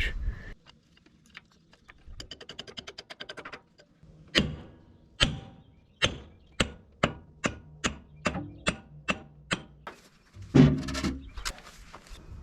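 Hammer blows on steel, about a dozen sharp strikes that come closer together until they are roughly two a second, driving out the bottom pin of an excavator's hydraulic cylinder. A quick run of light clicks comes before them, and a heavier clunk comes near the end.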